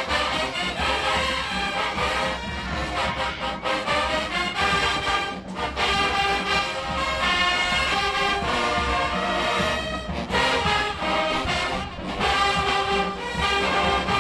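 Marching band brass playing a tune, horns over a steady low bass line, pausing briefly twice.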